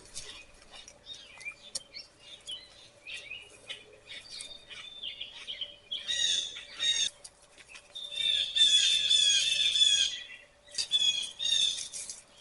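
Songbirds chirping and singing in short runs, with a long, dense stretch of song past the middle, over a faint steady hum.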